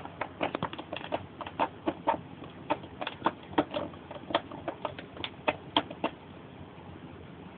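A kitten pawing and clawing at a plastic ball-track cat toy with a cardboard scratch pad in the middle: quick, irregular clicks and taps that stop about six seconds in.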